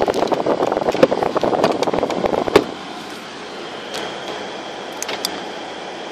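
Plastic interior trim of a car's centre armrest rattling and clattering under a hand for about two and a half seconds, ending in a sharp click. Then a quieter steady cabin hum with a faint high whine and a few light ticks.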